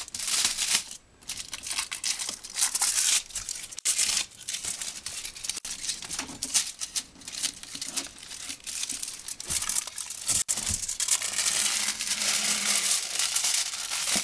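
Aluminium-foil masking crinkling and rustling in irregular bursts as it is handled and pulled off a masked motorcycle body panel, with masking tape being peeled away.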